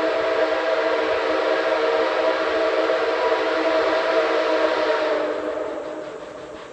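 Steam whistle of Nickel Plate Road 765, a 2-8-4 Berkshire steam locomotive, sounding one long steady blast of several notes at once, which fades away about five seconds in.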